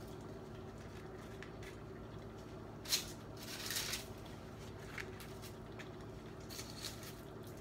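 Baked eggplant slices being handled and laid into a casserole dish: soft rustling with a sharp click about three seconds in and a smaller one about two seconds later, over a steady low hum.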